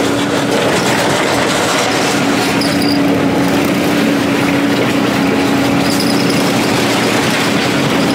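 An engine running steadily at a constant speed, with an even droning hum.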